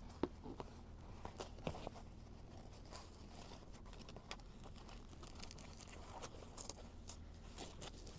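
Faint handling noises: scattered light clicks, rustles and crinkles as a seatbelt cover is worked onto a seatbelt strap, over a steady low hum.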